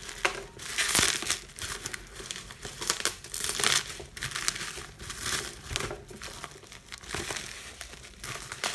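Tight plastic packaging wrap crinkling and rustling in irregular bursts as hands pull and tear at it, trying to get it open.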